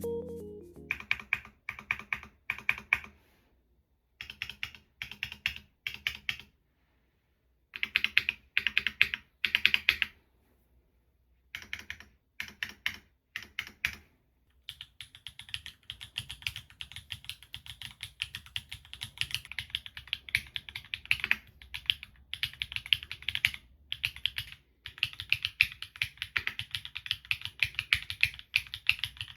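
Typing on a 60% custom mechanical keyboard with Gateron Type R switches, GMK keycaps, an aluminium plate and no foam. Short flurries of keystrokes with brief pauses between them give way, about halfway through, to steady fast typing.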